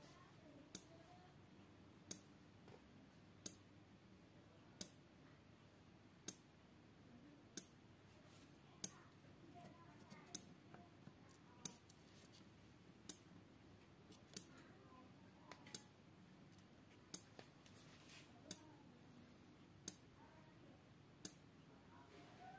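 Small 12-volt relay in a transistor flasher circuit clicking as it switches an LED module on and off, one sharp click about every second and a half at a steady rate.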